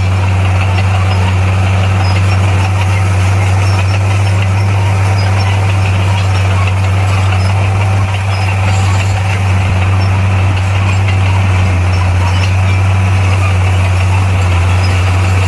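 Diesel engine of heavy earthmoving equipment running at a steady, unchanging speed with a deep drone.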